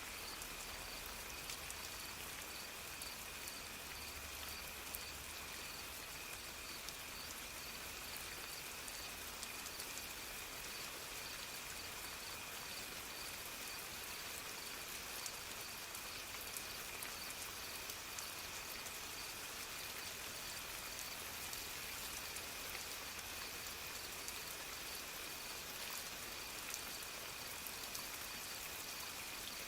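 Steady soft rain falling, with scattered drops ticking, under a constant high-pitched tone and a faint pulsing trill above it.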